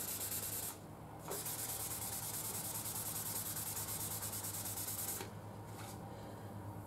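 Waterproof abrasive paper wetted with WD-40 rubbed back and forth in quick, even strokes over a motorcycle fork tube, sanding away pitting on its chrome. A short break about a second in; the strokes fade to a softer rub about five seconds in.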